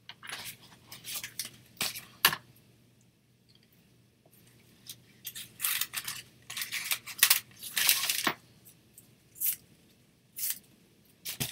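Craft materials being handled off to the side of the work surface: short, irregular rustles, scrapes and clicks. They come in two busy spells, one at the start and one from about five to eight seconds in, followed by a few single clicks.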